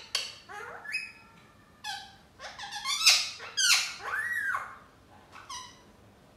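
A lutino rose-ringed (Indian ringneck) parakeet calling: a string of short, squeaky, chattering calls. The loudest and densest run comes about halfway through and includes a whistle that rises and falls, and one last short call follows near the end.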